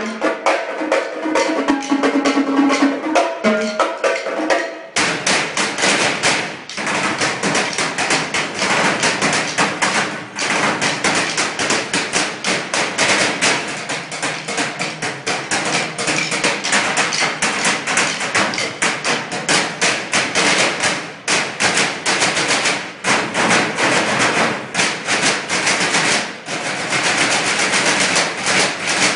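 A percussion ensemble strikes a row of galvanized metal trash cans in a fast, dense rhythm. The first few seconds are lighter, with some ringing tones. About five seconds in, the playing becomes a continuous stream of strikes.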